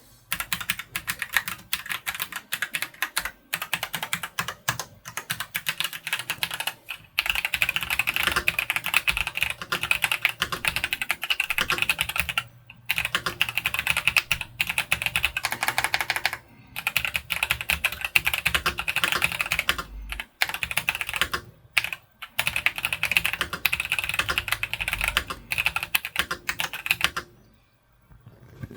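Fast, continuous typing on a Royal Kludge S98 96% wireless mechanical keyboard: a dense run of key clacks broken by brief pauses every few seconds, stopping shortly before the end.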